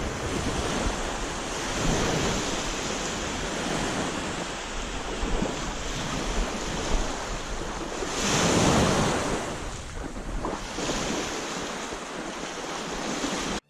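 Waves washing onto a beach with wind buffeting the microphone, one wave surging louder about eight seconds in. The sound cuts off abruptly at the very end.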